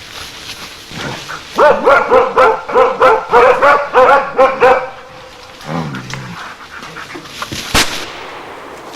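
A dog barking in a rapid run of about a dozen barks, roughly three a second. Then a brief low sound and a single sharp click near the end.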